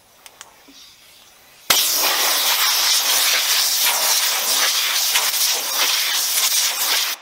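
Compressed-air blow gun on a shop air compressor hose, blowing water off a washed RC truck chassis. A loud, steady hiss of air starts suddenly about two seconds in and stops abruptly near the end.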